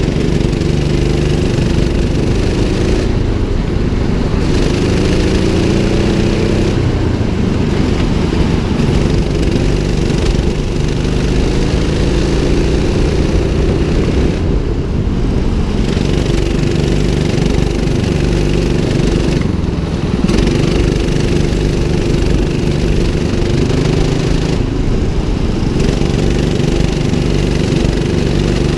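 A 200cc rental go-kart's engine running under the driver, its pitch rising on the straights and dropping again into the corners, over and over.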